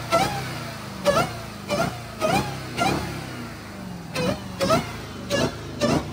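Supercharged V8 of a Jeep Grand Cherokee Trackhawk with its catalytic converters deleted, being revved in short, regular throttle blips, about two a second, the engine note dropping back toward idle between them.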